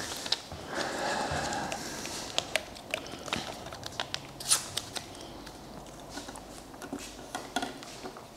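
Scattered light clicks and taps in a small room, the sharpest about four and a half seconds in.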